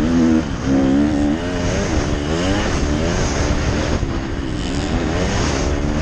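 Motocross bike engine heard from on board while racing, revving hard with its pitch repeatedly climbing and falling as the throttle is opened and eased, with a brief dip about half a second in.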